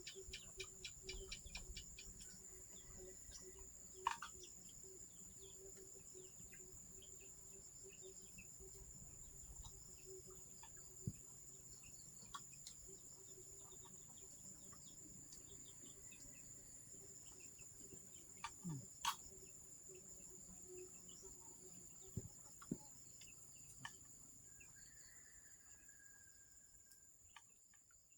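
Faint, steady, high-pitched insect chorus, with a few scattered small clicks and knocks; it fades out at the very end.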